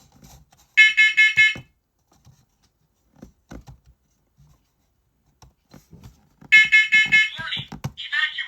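A First Alert Onelink talking smoke alarm sounding its self-test: two short bursts of rapid, loud, high-pitched beeps, about five and a half seconds apart.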